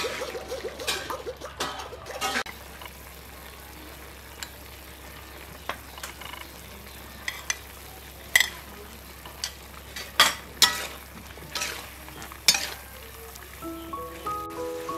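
Beef and pineapple stir-fry sizzling in a wok, with a metal spatula scraping and striking the wok now and then as it is stirred. Music comes in near the end.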